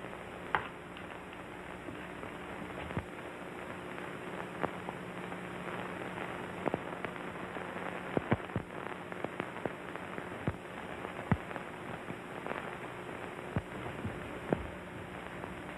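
Steady hiss and low hum of an early-1930s optical film soundtrack, with scattered clicks and pops through it.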